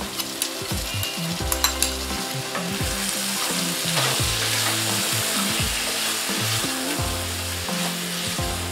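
Soya chunks and whipped yogurt sizzling in hot oil in a pan while being stirred with a spatula. A few sharp scrapes and clicks of the spatula come in the first two seconds, and the sizzle grows louder about three seconds in. Soft background music with low bass notes plays underneath.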